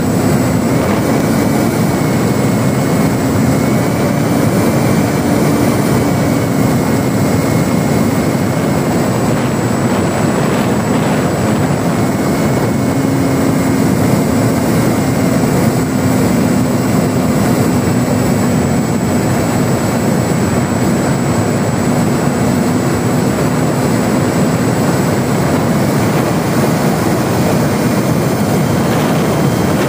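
Electric motor and propeller of a ParkZone Spitfire RC model plane running steadily in flight, heard up close from the cockpit, a droning hum that drifts slightly in pitch over a constant rush of air noise.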